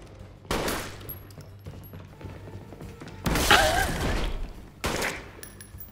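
Gunshots in a TV action scene's soundtrack over background music: a sharp shot about half a second in, a longer, louder burst around three and a half seconds in, and another shot near the end.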